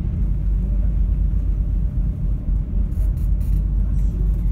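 Passenger ferry's engines running, a steady low rumble heard from on board.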